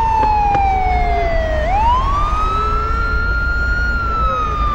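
Emergency vehicle siren in a slow wail: one tone slowly falls, sweeps quickly back up a little under two seconds in, holds, and begins to fall again.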